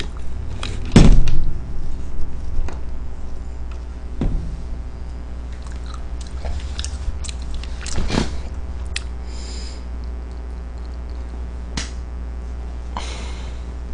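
Eating-table handling noises close to the microphone: a loud knock about a second in, a few lighter knocks after it, and brief rustling twice near the end, over a steady low hum.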